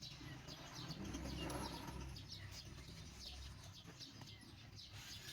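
Many short, high chirps from small birds, repeating throughout, with a low rumble underneath from about a second in until past the middle.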